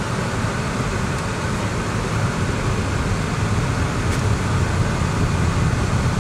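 Steady low rumble of road and engine noise inside a moving car's cabin, with tyre and wind hiss above it, growing slightly louder across the stretch.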